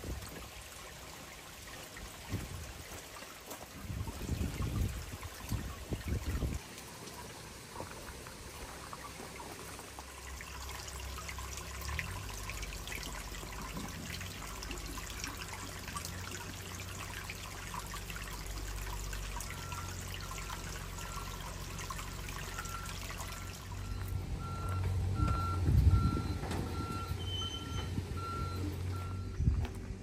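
Water trickling and splashing into a small pool. In the second half a low steady rumble runs underneath, and near the end a series of short, evenly spaced beeps sounds.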